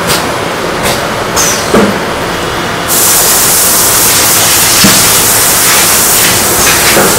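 Busy commercial kitchen: a few short clatters over steady background noise, then, about three seconds in, a loud, steady rushing hiss of running kitchen machinery suddenly takes over and holds.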